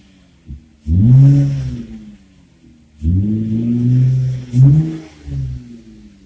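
2008 Dodge Avenger engine revved from idle through a motorcycle muffler fitted in place of the stock muffler, with a beefy exhaust note: a quick blip about a second in, a longer rev held for about a second and a half from three seconds in, then two short blips, dropping back to idle between each.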